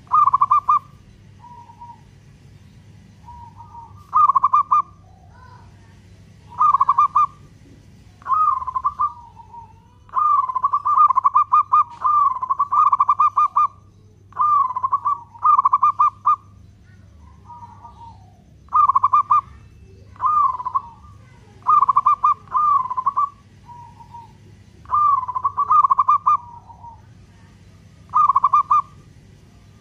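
Zebra dove (perkutut) singing: about fourteen short coo phrases made of fast trilled pulses, each under a second, with an almost unbroken run of them from about ten to fourteen seconds in.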